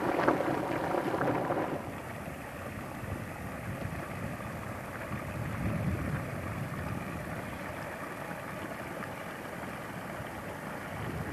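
A hot spring vent boiling and hissing with steam for about the first two seconds, then a quieter steady rush of shallow flowing water.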